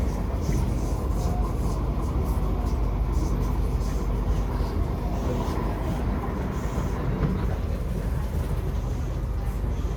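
Cabin noise of a Kawasaki–Nippon Sharyo C751B metro train running between stations: a steady low rumble from the wheels and track, with sharp knocks recurring every half second to a second. The knocking is not flat wheels, as the rider is quite sure.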